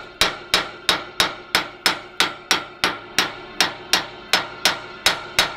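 Small hammer tapping the stays of the GWR locomotive 1501's firebox in a steady run, about three strikes a second, each leaving a clear ring. The lovely ring shows the stays are sound, with none broken.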